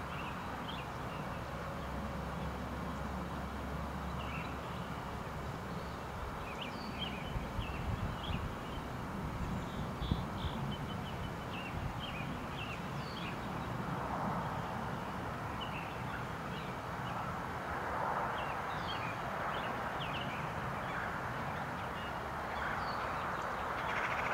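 Small birds chirping in short, repeated calls over a steady outdoor hiss, with a few soft knocks between about seven and ten seconds in.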